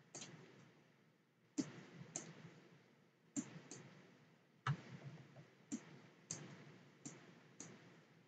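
A computer mouse clicking: about ten faint, sharp clicks at uneven intervals, pressed and released as lines are drawn in a painting program.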